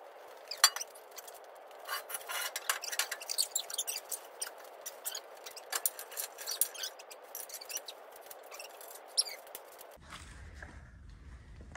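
Rapid small clicks and clinks of hand tools and metal hardware being worked, thin and tinny over a light hiss, stopping abruptly about ten seconds in.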